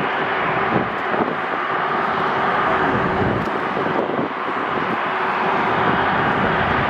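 Jet airliner engines, a loud, steady rushing noise with a faint steady tone running through it.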